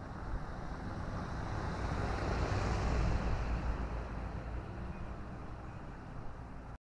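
2017 Jeep Wrangler Rubicon, with its 3.6-litre V6, driving past: engine and tyre noise grows to a peak about three seconds in, then fades, and cuts off suddenly near the end.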